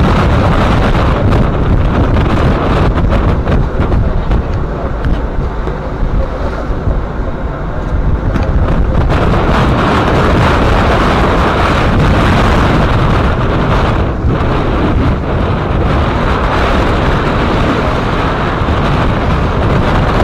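Gale-force wind, about 35 knots, buffeting the microphone over the rush of breaking waves and spray along a sailboat's hull. The noise grows louder about nine seconds in.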